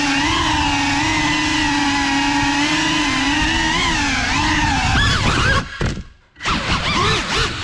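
Small FPV quadcopter's brushless motors and propellers whining, the pitch wavering up and down with the throttle. About six seconds in the whine drops out almost to nothing for about half a second as the throttle is cut, then comes back with the pitch rising.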